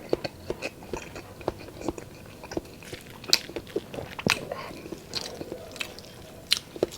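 Close-miked chewing and mouth sounds of someone eating pork adobo with rice: irregular wet smacks and clicks, several a second, with a few sharper smacks.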